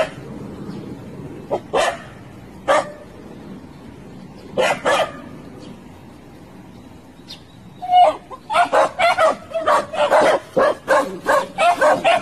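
Small fluffy white dog barking: a few single barks spaced out over the first five seconds, then a fast, continuous run of barks from about eight seconds in.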